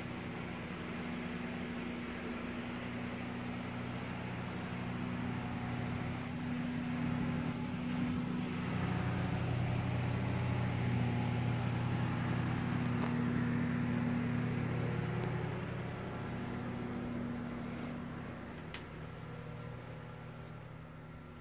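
Steady mechanical hum of a motor or appliance, growing louder about a third of the way in and fading toward the end, with a faint click near the end.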